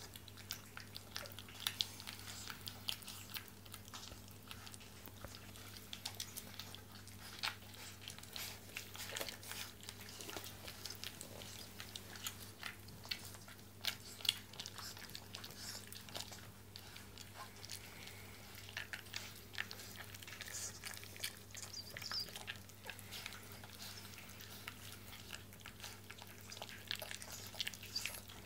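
Five-week-old puppy eating dry kibble from a stainless steel bowl: a continuous run of small crunches and clicks as it chews and its paws and muzzle knock the pellets against the metal, over a low steady hum.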